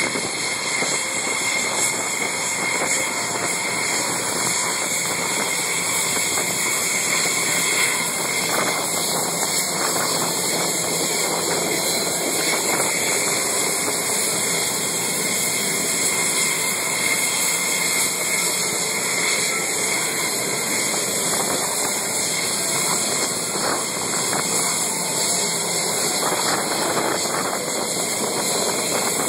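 F-16 jet engines running steadily at low power: a continuous rushing hiss with a faint high whine.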